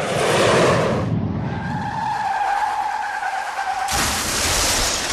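Car tyres skidding: a noisy rush, then a steady squeal, cut off about four seconds in by a sudden loud, noisy burst.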